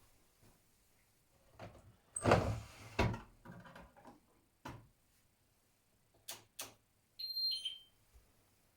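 Miele W1 washing machine: a heavy clunk and several smaller knocks, two sharp clicks, then a brief electronic beep of two falling notes near the end.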